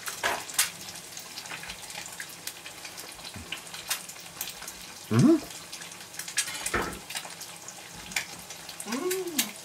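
Eggs frying in a pan of clarified butter: a steady sizzle with frequent small crackles and spits.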